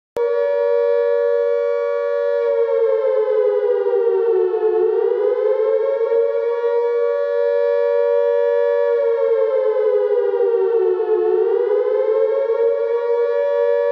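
A loud, sustained siren-like wailing tone that starts abruptly, holds a steady pitch, slowly sags and climbs back up twice, and cuts off suddenly.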